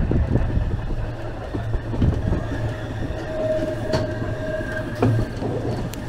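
Train running on rails: a steady low rumble with a few sharp clicks and a faint high wheel squeal held for about a second and a half near the middle.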